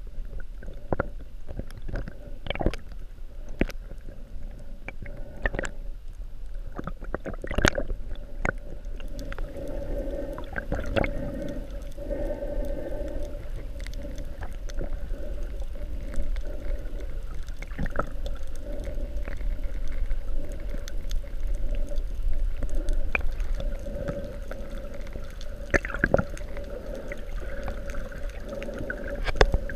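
Underwater sound picked up through a GoPro Hero 3's waterproof housing while snorkelling: water sloshing and gurgling around the camera, with irregular clicks and pops, thickest in the first few seconds, over a steady low hum.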